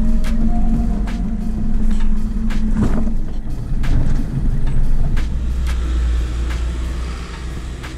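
A motor vehicle driving, with a steady engine hum and low road rumble, and repeated short knocks and rattles throughout. The sound gets quieter near the end.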